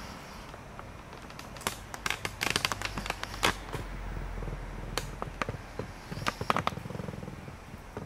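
Irregular sharp clicks and taps, some in quick clusters, over a low rumble that swells and fades in the middle.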